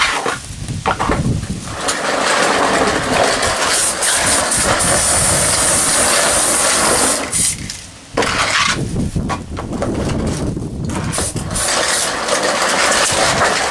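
Aerosol can of Citadel spray primer hissing in long sprays, broken by short pauses, the longest about eight seconds in.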